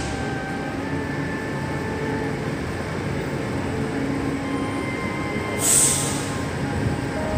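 Steady mechanical rumble with several faint steady hums that shift in pitch now and then, and a brief hiss right at the start and again near the end.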